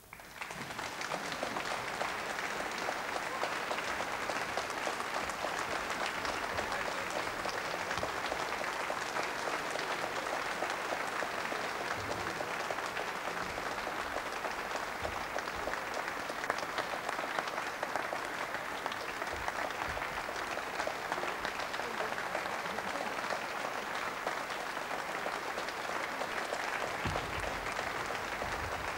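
A large audience applauding, breaking out suddenly at the close of the music and holding steady throughout.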